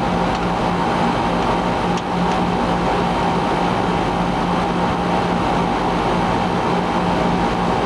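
Split air conditioner's outdoor unit running, a steady compressor and fan hum with a constant low tone, while the refrigerant charging hose is connected to its service port.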